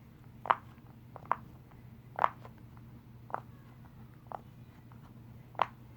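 Green silicone pop-it fidget toy being pressed from its back side, the bubbles popping one at a time: six separate pops about a second apart.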